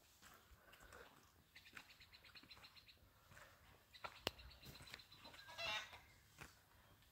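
Chickens clucking faintly in short repeated calls, with one louder call late on and a single sharp click a little past halfway.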